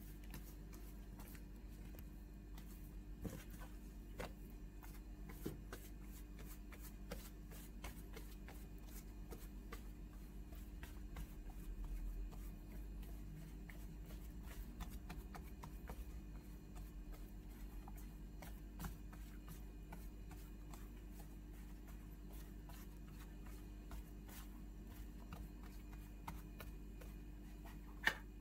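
Hands pressing and patting yeast dough out flat on a floured countertop: faint, irregular soft pats and taps over a low steady hum. A sharper knock comes near the end.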